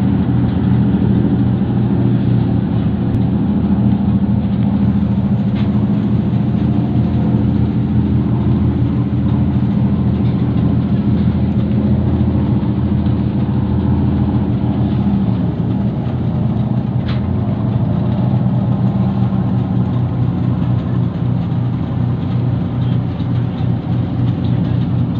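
Boat engine running steadily with a low drone; one of its tones fades out about 15 seconds in.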